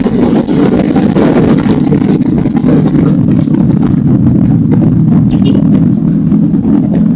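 Motorcycle engine running steadily, with wind noise on the microphone.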